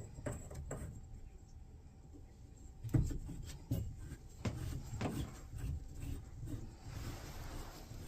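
Irregular knocks and clicks of tub/shower valve parts being handled and fitted back together during reassembly after a rubber seal replacement, the loudest knock about three seconds in, with a brief hiss near the end.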